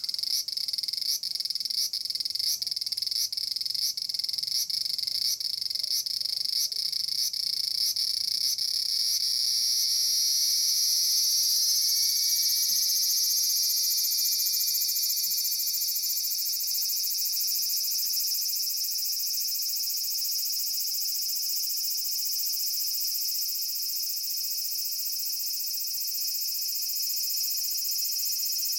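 Large brown cicada (aburazemi, Graptopsaltria nigrofuscata) singing loudly, a high sizzling buzz. For the first several seconds it pulses about twice a second. Around ten seconds in it runs together into one unbroken buzz that rises slightly in pitch and then holds steady.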